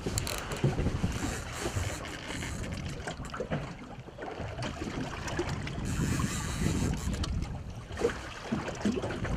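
Wind buffeting the microphone over sea water and a small boat's hull noise, the loudness rising and falling in gusts.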